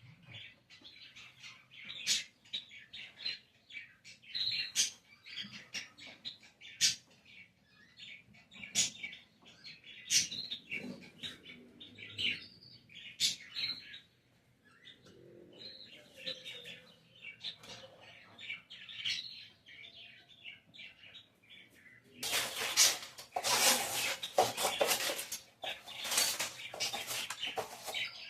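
Small birds chirping and twittering, with sharp clicks among the calls. About three-quarters of the way through, a loud, busy clattering takes over.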